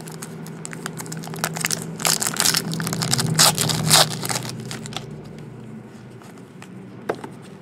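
Trading card pack wrappers crinkling and tearing as packs are ripped open, busiest and loudest in the first half, thinning out later, with a single sharp click near the end.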